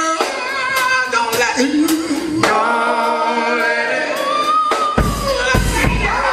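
Live gospel quartet music: voices singing over electric bass guitar and drums, with sharp drum and cymbal hits. About five seconds in, loud low bass notes come in under the singing.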